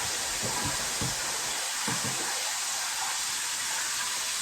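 Chicken frying in a pan of hot oil, a steady sizzle.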